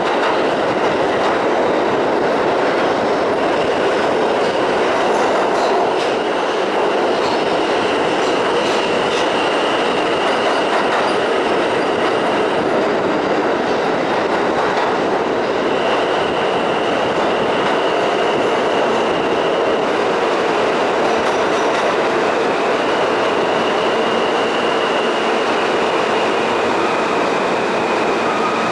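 New York City subway E train running at speed through a tunnel, a loud, steady rumble of wheels on the rails. A thin high tone comes and goes several times over the rumble.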